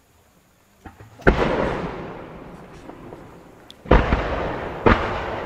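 Aerial firework shells bursting: three loud booms, about a second in, near four seconds and again about a second later, each trailing off in a long rolling echo.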